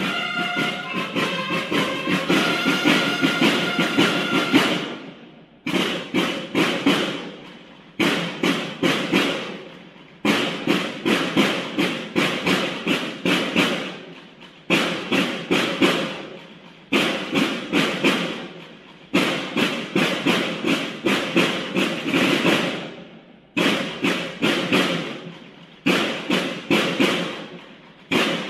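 Banda de guerra field drums playing a march cadence, with bugles sounding over them for the first four seconds or so. After that only the drums play, in repeating phrases about two seconds long, each starting with a loud stroke and dying away.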